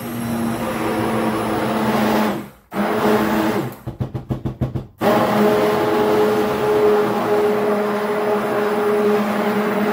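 Stick (immersion) blender running in a tub of cold process goat milk soap batter, blending the oils and lye solution toward emulsion. It stops briefly about two and a half seconds in, is pulsed in quick short bursts around four to five seconds, then runs steadily.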